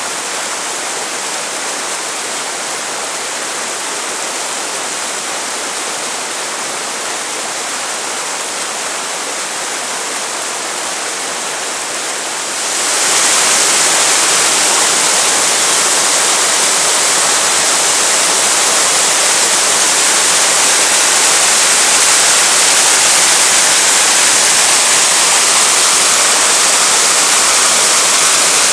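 Whitewater rapids of a creek pouring over granite rock, a steady rushing of water that jumps louder a little before halfway and stays loud.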